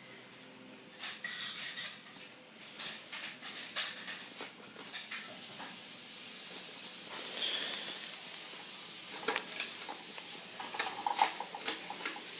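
Ceiling fan pull chain rattling and clicking, then the Litex all-weather ceiling fan running up to a steadier, louder whooshing hiss about five seconds in. More chain clicks come near the end. The owner puts its whirring down to the bearings.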